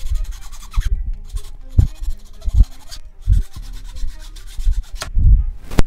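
A 3D-printed plastic part being rubbed back and forth along a flat metal file, a series of uneven scraping strokes about once a second, smoothing the printed surface.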